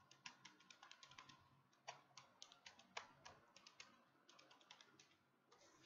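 Faint clicking of keys tapped in quick, irregular runs, as figures are being totalled up.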